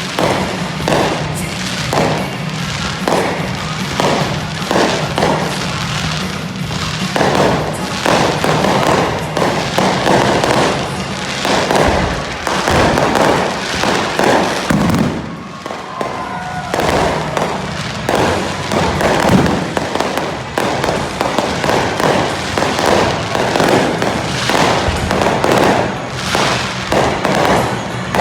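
Fireworks exploding in a dense, continuous barrage of bangs, several a second, easing briefly about halfway through.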